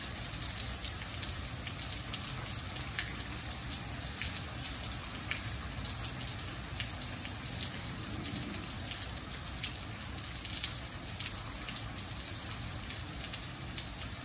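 Steady rain falling on a porch and yard near the end of a desert thunderstorm, with scattered sharp drips.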